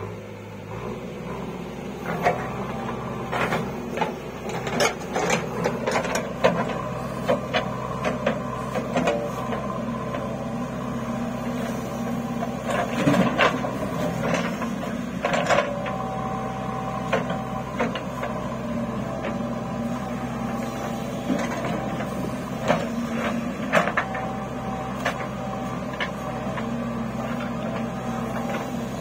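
JCB 3DX backhoe loader working: its diesel engine runs steadily under load while the backhoe arm and bucket give many sharp clanks and knocks at irregular intervals as it digs soil and dumps it.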